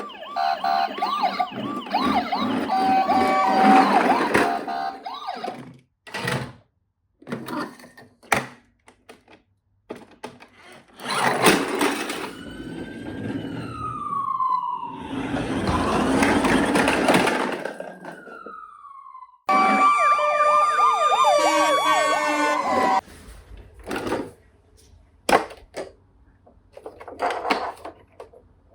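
Electronic sirens of toy police cars and ambulances sounding in short spells, a fast wail in each, with a noisy stretch with falling tones in the middle. Sharp plastic clicks from the toys being handled and switched come in between.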